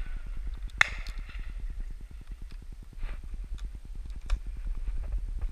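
Shotgun reports across a driven shoot: a sharp report about a second in, then several fainter, more distant ones, over a steady low rumble of wind on the microphone.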